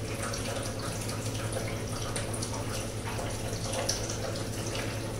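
Black plastic ladle stirring thin butter chicken gravy in a non-stick pan on a gas stove: wet sloshing and bubbling with light scrapes against the pan, over a steady low hum. The gravy has just been thinned with a little water.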